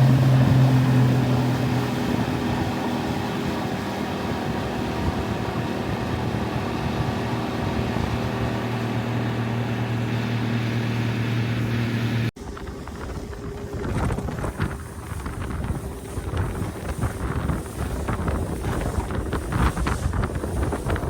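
Motorboat engine running steadily under way, with wind on the microphone. About two-thirds of the way through it cuts abruptly to a rougher stretch of wind buffeting and water slapping as the boat bounces over waves, the engine only faintly heard.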